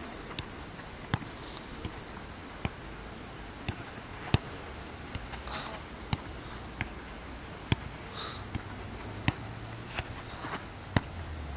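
Football being struck in short passes on artificial turf: sharp knocks coming irregularly, about one every half-second to second, the loudest about four seconds in, over a faint steady background.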